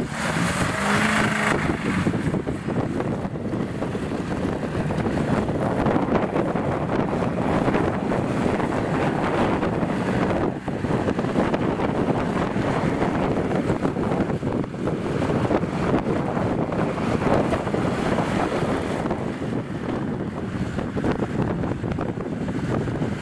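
Wind buffeting the microphone over the sound of off-road 4x4 engines running as they work through deep mud.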